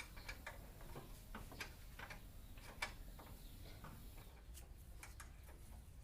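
Faint, irregular clicks and light taps over a low background rumble.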